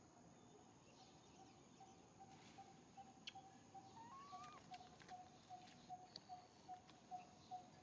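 Faint bird call: one short note repeated steadily about four times a second, with a brief rising note partway through.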